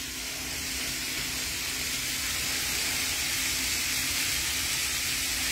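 Diced sweet potatoes and Brussels sprouts sizzling steadily in oil and bacon grease in a skillet, getting slightly louder as a pat of plant-based butter melts in. A faint steady low hum sits underneath.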